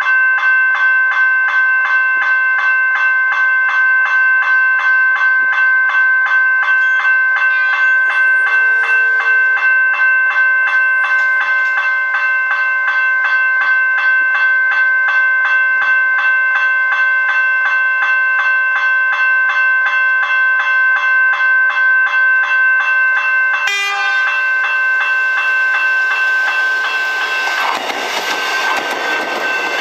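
Level crossing warning bells ringing with a rapid, even beat. In the last few seconds an X'trapolis electric train's rumble rises underneath as it arrives and passes.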